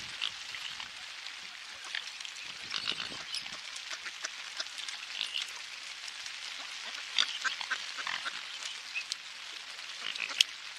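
A crowd of mute swans and ducks calling at close range: many short, scattered calls and clicks over a steady hiss of rain.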